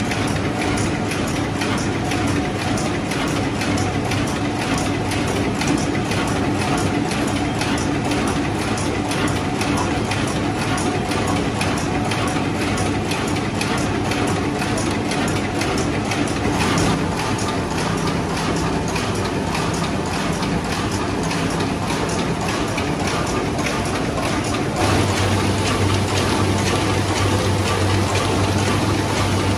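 Somtaş TR 15-32 twisted-handle paper bag making machine running: a fast, even mechanical clatter over a steady hum. The hum changes pitch twice in the second half.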